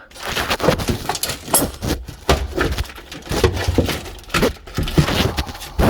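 Rummaging in a car's trunk: irregular knocks, clatters and scrapes as a stuck jack and its cover are forced free.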